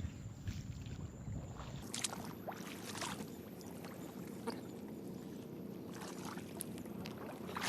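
Slow wading through fairly deep paddy water, with steady low sloshing and occasional small splashes as the legs push through.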